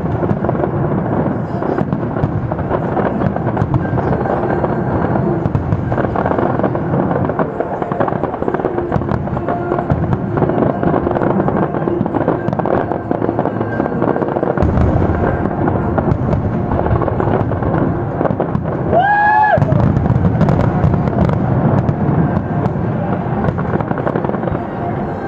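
Aerial fireworks display: a dense, unbroken run of shell bursts and crackling. About nineteen seconds in, a brief rising high tone cuts through.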